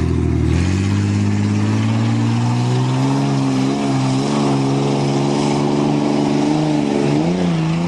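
Ford Ranger pickup's engine pulling hard: the revs climb in the first second, then hold high with a slowly rising, wavering pitch, dipping briefly about seven seconds in.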